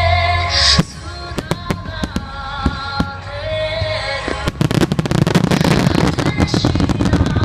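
Fireworks bursting over music with sustained tones: scattered sharp bangs from about a second in, then dense, rapid crackling through the last three seconds.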